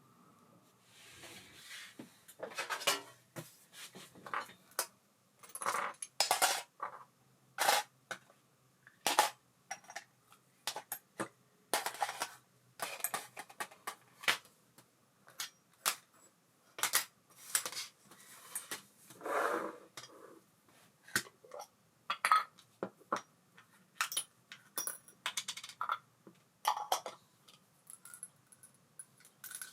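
Small metal reel parts and hand tools clicking and clinking irregularly while an Abu Garcia Ambassadeur 5500C baitcasting reel is taken apart or put back together.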